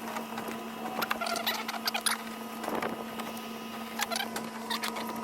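Irregular light clicking and scratching of thin template strips being handled and hot-glued together, in small clusters, over a steady electrical hum.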